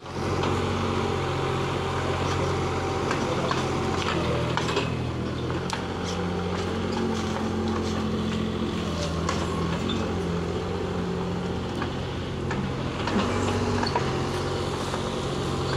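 Terex TC16 mini excavator's diesel engine running steadily as the machine backfills, its pitch shifting a little under hydraulic load, with scattered sharp clanks and knocks throughout.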